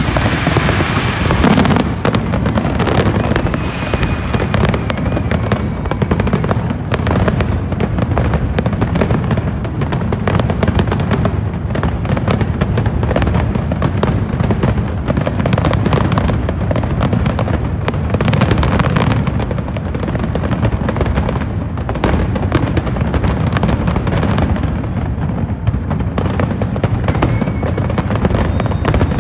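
Aerial fireworks display in full barrage: many firework shells bursting in quick, overlapping succession, a continuous run of loud bangs over a deep rumble.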